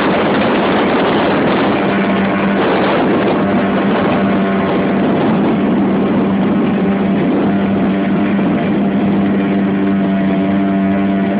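Yamaha 5 hp outboard motor running at a steady speed, driving a small inflatable boat, over a constant rush of water and wind.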